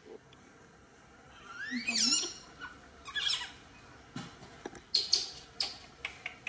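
Newborn baby monkey squealing as it is rubbed dry in a towel: one high rising-and-falling squeal about two seconds in, another about a second later, then several short sharp squeaks near the end.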